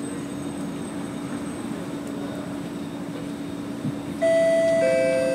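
Steady hum of a C751B train standing at a station. About four seconds in, a two-note door chime sounds, a higher note followed by a lower one, both ringing on and slowly fading: the warning that the doors are about to close.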